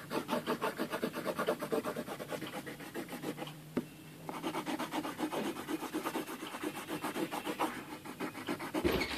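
A green colouring pen scribbling rapidly back and forth on a colouring-book page, about six strokes a second, with a brief pause about three and a half seconds in.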